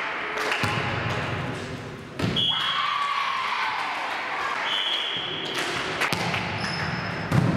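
Volleyball play in a sports hall: the ball is struck with sharp thumps about two seconds in and twice near the end, with a couple of short high squeaks and a background of echoing voices.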